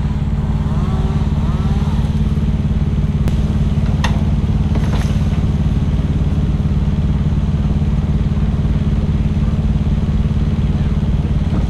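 Diesel-type engine of heavy tree-work equipment running steadily at constant speed. A few brief sharp clicks come about four to five seconds in.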